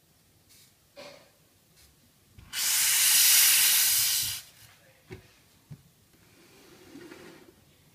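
The steam wand of a La Pavoni Europiccola lever espresso machine is opened and blasts steam for about two seconds, then is shut off sharply: a loud, even hiss, purging the wand. A few light knocks come before and after it.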